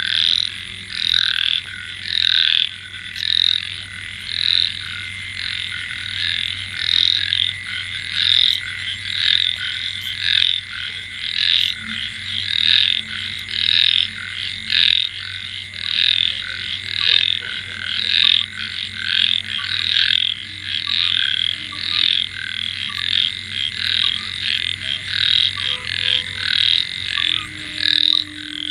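A chorus of monsoon frogs calling, their croaks repeating in a steady rhythm of about one to two calls a second over a thin steady high tone.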